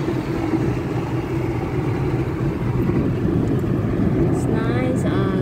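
Steady drone of road and engine noise heard inside a moving car's cabin. A voice briefly speaks near the end.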